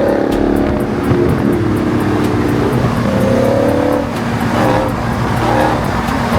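Car engines at highway speed: a Honda Acty kei truck's small engine running flat out, with the 6.4-litre Hemi V8 of a Dodge Challenger Scat Pack driving alongside. The engine notes rise and fall around the middle.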